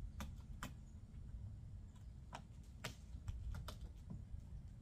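About eight light, irregularly spaced clicks and taps as hands handle and seat an insulated window panel against the rear door's plastic trim, over a low steady rumble.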